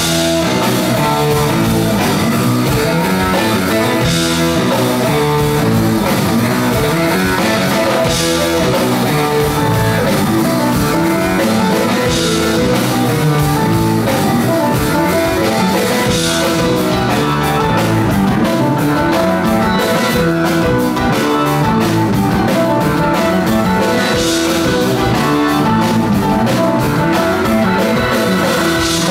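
Live progressive rock band playing an instrumental passage at full volume: electric guitar, bass guitar, keyboards and drum kit, with a bright accent about every four seconds.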